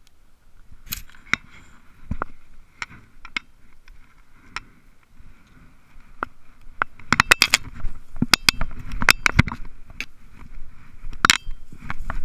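Crackling and sharp clicks of someone moving through tall dry grass and brush, with knocks on the camera. They are scattered at first and densest and loudest from about seven to ten seconds in.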